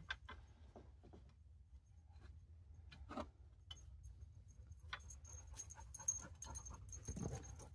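Faint rustling and clicks of tangled synthetic winch rope being worked loose by hand on the winch drum, with a dog panting in the second half.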